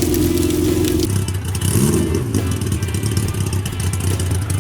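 1979 Kawasaki KZ1000's air-cooled inline-four engine running steadily, with a brief rise in pitch about two seconds in.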